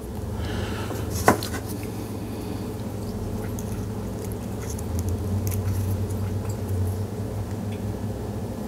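Thin lure wire being handled and straightened by hand: faint scratches and ticks, with one sharp click about a second in, over a steady low hum.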